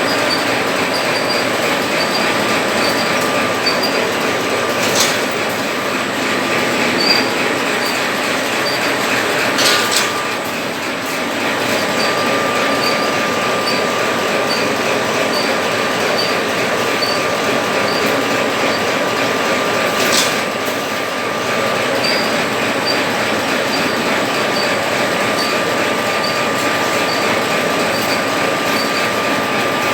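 Automatic paper-napkin packaging machine running: a dense, steady mechanical clatter with a light tick about twice a second and a thin steady whine. A few sharp clacks stand out above it.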